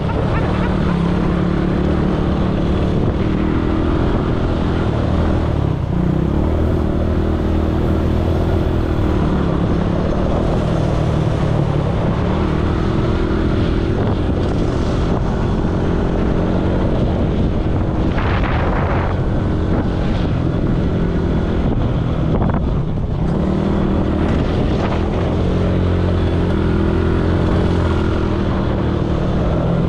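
ATV engine running steadily while riding, its pitch drifting up and down a little.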